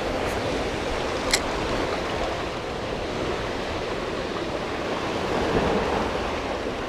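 Sea surf washing against a rocky shoreline, a steady rushing noise, with one short sharp click about a second and a half in.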